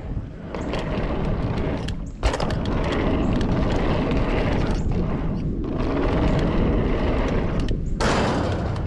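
Mountain bike riding fast over steel grating and concrete: tyre rumble and wind buffeting on the camera's microphone, with a sharp thud about two seconds in.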